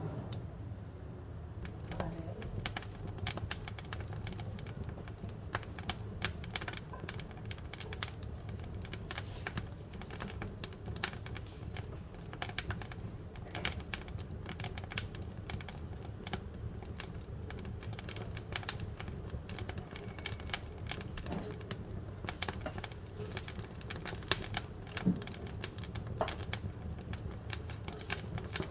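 Firewood burning in a wood-fired cook stove, crackling with many irregular sharp pops over a steady low rumble, with one louder pop near the end.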